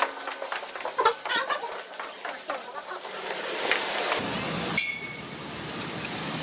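Scattered clicks, knocks and rustling of someone walking out of a building. About four seconds in, the sound opens up to the steady noise of city traffic on a wet street, with a brief high tone a second later.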